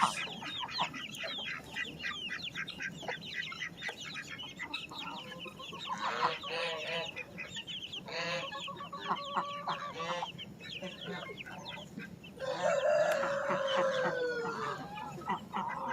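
Chickens clucking and calling. Near the end comes a longer drawn-out call, a rooster crowing.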